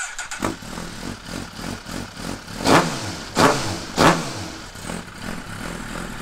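2017 Suzuki GSX-R1000's inline-four engine running through a full Lextek aftermarket exhaust (headers, link pipe and slip-on muffler), with a deep, throaty sound. It idles and is blipped on the throttle, with three sharp revs about two thirds of a second apart in the middle, each rising and falling quickly.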